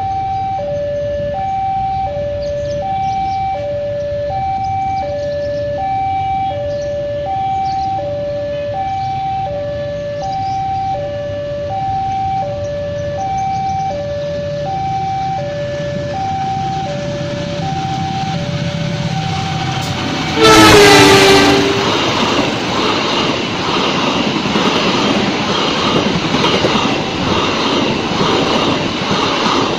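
Level-crossing warning alarm sounding an electronic two-tone signal that alternates between two pitches about twice a second. About twenty seconds in, a diesel locomotive's horn gives one loud blast of about a second and a half. A fast passenger train then rushes through, its wheels and coaches making a dense rumble and rattle that grows louder.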